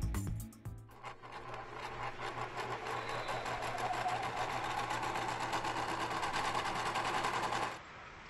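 Sewing machine stitching at speed: a fast, even rattle of needle strokes over a steady motor hum. It starts about a second in and cuts off abruptly near the end.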